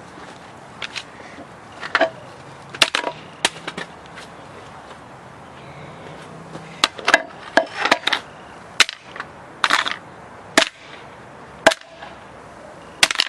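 Hammer blows smashing a flip clock: about a dozen sharp strikes at irregular intervals, some coming in quick pairs.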